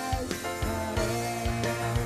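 A small band playing live: electric keyboard, electric guitar and drums, with held chords over a steady drum beat.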